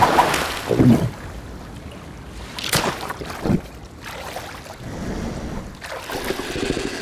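Water splashing as a tail flicks out of it in the first second, then soft lapping water and wind with a couple more brief splashes.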